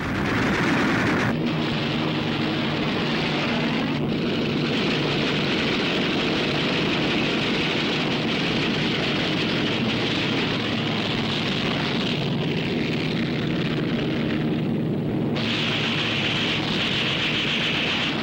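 Propeller aircraft engines droning under a dense crackling noise, the mix changing abruptly several times.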